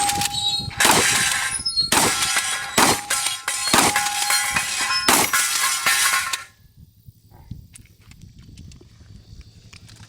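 A rapid string of about seven shotgun shots, the steel targets ringing with clear tones after the hits. The string stops about six and a half seconds in.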